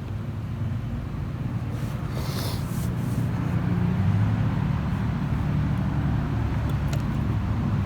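Steady low rumble like a motor vehicle running, with a few faint sharp clicks near the end.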